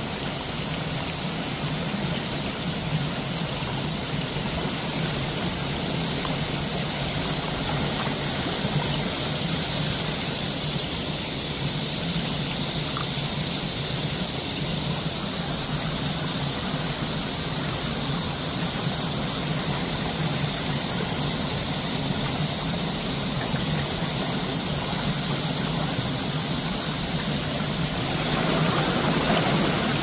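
Shallow mountain stream running over stones: a steady rush of water, swelling a little louder near the end.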